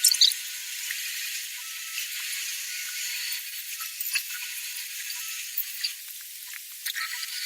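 Stone milling machine cutting: a steady hiss with scattered sharp clicks and faint squeaks, thin and without any low end.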